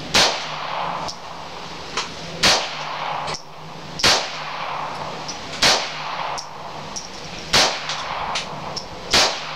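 Smith & Wesson Model 22A-1 .22 LR semi-automatic pistol with a 7-inch barrel firing six shots at a slow, even pace, one about every one and a half to two seconds. Fainter sharp cracks fall between the shots.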